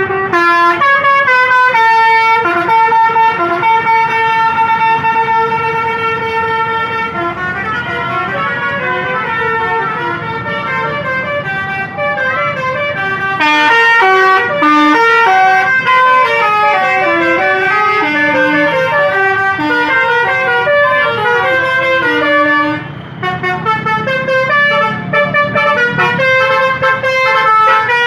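A bus's basuri musical air horn playing a tune: long held notes at first, then quicker changing notes, with a brief drop in loudness about three-quarters of the way through. A low rumble runs underneath.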